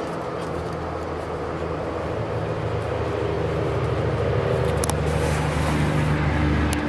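An engine running with a steady low hum that slowly grows louder, with a couple of light clicks near the end.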